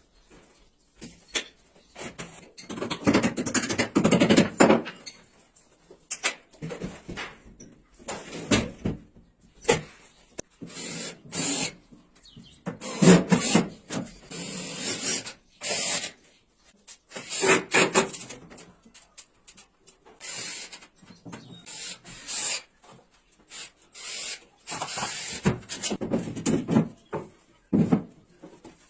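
A hand tool worked against wood in irregular rasping strokes, each lasting about a second, with short pauses between.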